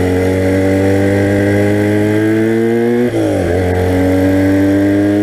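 1982 Honda motorcycle engine pulling under acceleration, its pitch climbing steadily. About three seconds in there is a quick drop and recovery in pitch as it shifts up a gear, then it climbs again.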